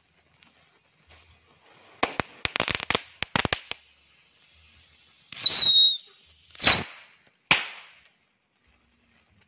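A pile of assorted small firecrackers going off: a rapid string of sharp cracks about two seconds in, then three louder bursts, the first two with a brief whistle.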